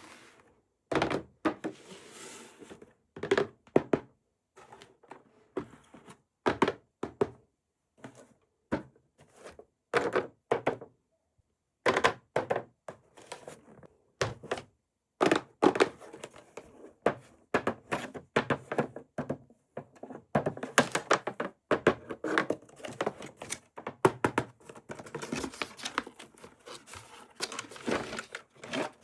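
Toy packaging being handled and opened: a string of irregular thunks and knocks, with bouts of crinkling and rustling in between.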